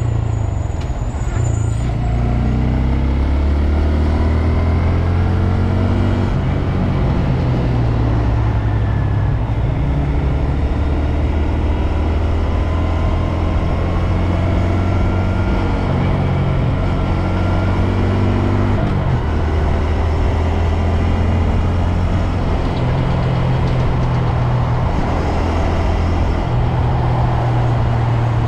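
2022 Honda Grom's 125 cc single-cylinder engine running under way, with the pitch climbing early on and dropping sharply about two-thirds of the way through as the revs change.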